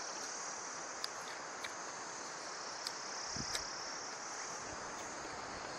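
Faint outdoor ambience: a steady high-pitched insect drone, with a few soft clicks and a small low thump a little past the middle as a man chews a freshly picked wild leaf.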